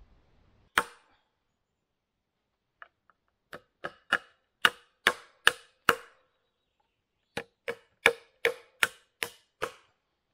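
Hammer nailing wooden battens across a round lid of split logs: a single knock about a second in, then two runs of sharp, ringing strikes at about two to three a second, with a short pause between them.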